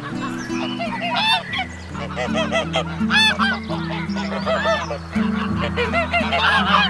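Waterfowl honking: many short, repeated calls overlapping quickly, over background music.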